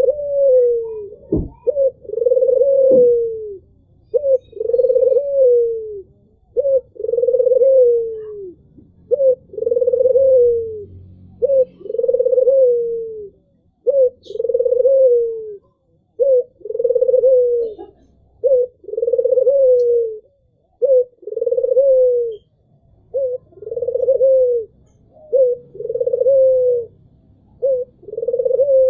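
Albino Barbary dove (puter) cooing over and over: a short note followed by a longer, falling coo, repeated about every two seconds. A brief knock about one and a half seconds in.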